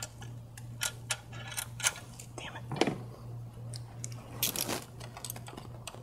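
Scattered light metallic clicks and clinks of hand tools and fittings being worked on a VW 2.0T TSI engine's high-pressure fuel pump, over a steady low hum.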